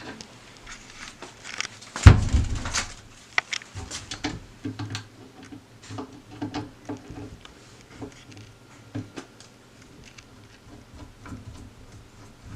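Clicks and taps of a cabinet door and a knob being handled, with one heavy thump about two seconds in, then a run of small light clicks.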